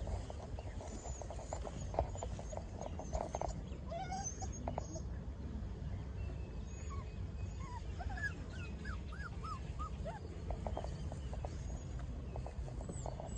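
Young puppies whimpering and squeaking in short, high cries that rise and fall, several in a row about eight to ten seconds in, with rustling in dry grass as they scramble about.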